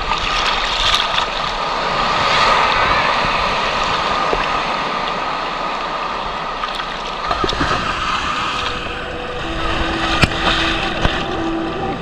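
Sea waves surging and sloshing around a camera held at the water's surface, a loud, continuous rush of surf. About nine seconds in, steady held music tones come in beneath the water noise.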